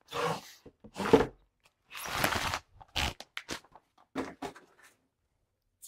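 Plastic bag crinkling and rustling in several loud bursts as a long antenna is slid out of it, followed by a few short clicks and knocks of handling.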